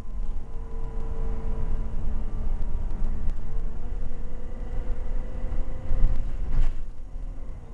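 Volvo B7TL bus's six-cylinder diesel engine and drivetrain running under way, heard loud from inside the passenger saloon. There is a deep rumble with a steady whine that steps up in pitch about halfway through, and a brief knock near the end.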